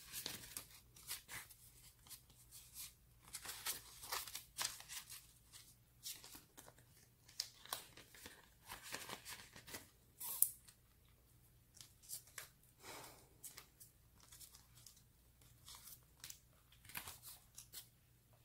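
Paper banknotes and a clear plastic binder envelope being handled: soft, irregular rustling and crinkling, with a sharper crackle about ten seconds in.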